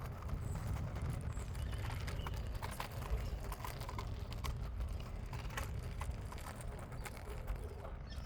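Scooter rolling over pavement: a steady low rumble from the wheels, with scattered small clicks and rattles.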